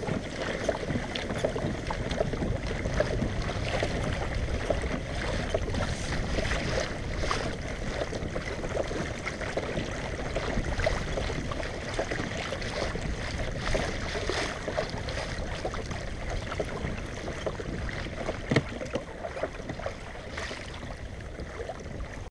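Water lapping and splashing against a kayak hull on choppy sea, with wind on the microphone and a few light knocks.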